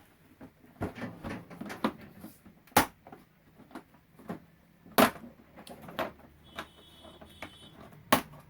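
Scattered clicks and knocks of a TV's back cover and its screws being worked on by hand. Two sharper knocks stand out, about three and five seconds in.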